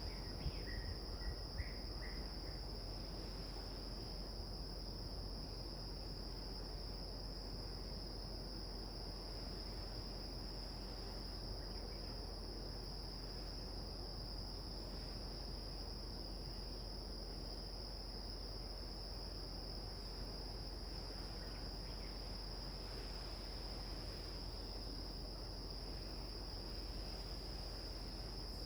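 Chorus of crickets trilling, one steady unbroken high-pitched tone over a faint low hiss, with a few short chirps in the first two seconds.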